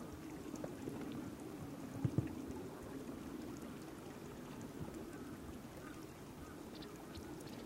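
Sea water lapping and splashing, with two low thumps about two seconds in.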